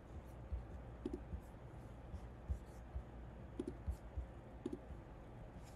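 Faint, irregular clicks from a computer mouse and keyboard, about a dozen spread unevenly across a few seconds.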